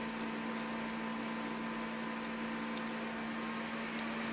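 Steady electrical hum over a low hiss, with a few faint, light clicks.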